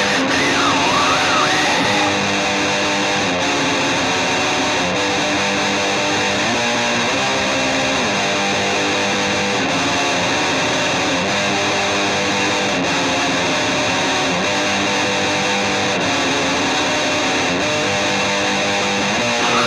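Instrumental stretch of guitar-led band music, with strummed, distorted guitar over a dense, steady backing and no singing.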